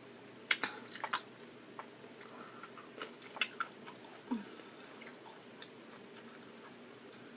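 Close-miked wet chewing and lip smacks of someone eating sticky black bean sauce noodles: scattered short, sharp mouth clicks, busiest in the first second and again about three to four and a half seconds in.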